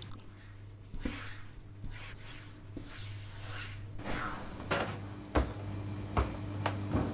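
Wholemeal bread dough being kneaded by hand on a steel worktop: soft mixing noise at first, then about five slaps in the second half as the wet dough is thrown down and folded, over a steady low hum.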